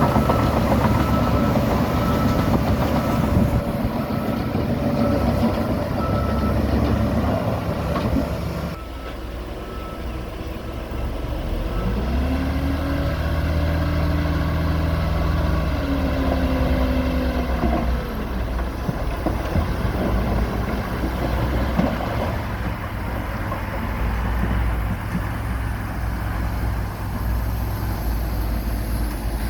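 Heavy diesel engine running under load, revving up and easing back down once in the middle. The sound changes abruptly about nine seconds in.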